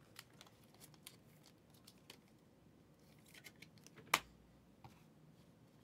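Trading cards being handled: faint rustles and small clicks of cards sliding and being flipped, with one sharper snap about four seconds in.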